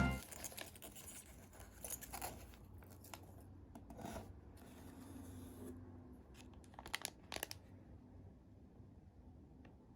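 Faint handling of packaging being opened by hand: light rustling, scraping and a tearing sound, with a few soft clicks, the loudest a short cluster about seven seconds in.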